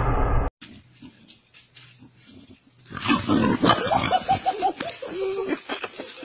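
A pig grunting and squealing in quick short calls as it tussles with a child. Before that, a burst of music cuts off abruptly about half a second in.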